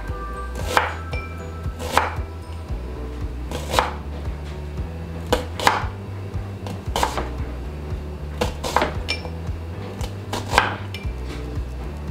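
Knife slicing through a yellow onion and knocking on a bamboo cutting board: unhurried cuts, about one a second, sometimes two close together.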